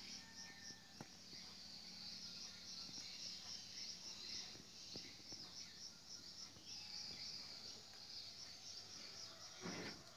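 Faint chirping of insects: a steady, high, evenly pulsing trill. A brief scuffing noise near the end.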